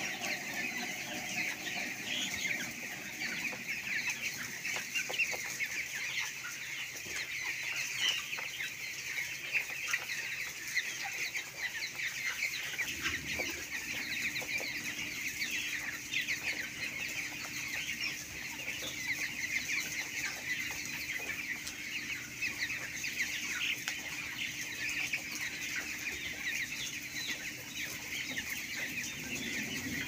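A large flock of broiler chickens in a poultry shed: a dense, continuous chatter of many overlapping chirps and clucks. A steady low hum comes in about halfway through and stops near the end.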